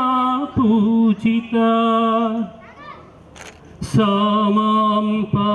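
Voices singing a slow song in long held notes, pausing for about a second and a half around the middle.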